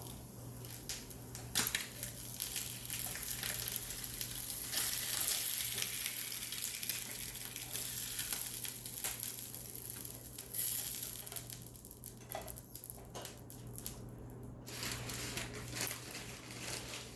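Rustling and crinkling of plastic packaging being handled during an unboxing, with many small clicks and taps.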